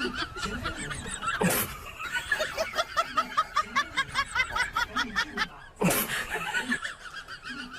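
Laughter: a run of quick, repeated high laughing sounds.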